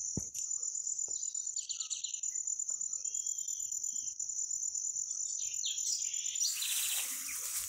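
Insects trilling steadily in a high-pitched drone, with a few short bird chirps over it. A broad rush of noise comes in near the end.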